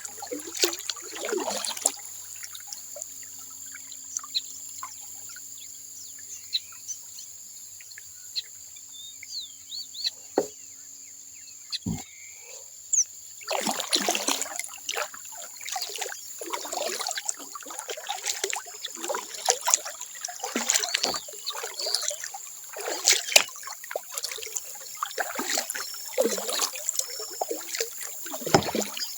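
Kayak paddle strokes on a stream, water splashing and dripping off the blade in uneven bursts. They stop about two seconds in and start again about halfway through. A steady high-pitched whine sits underneath.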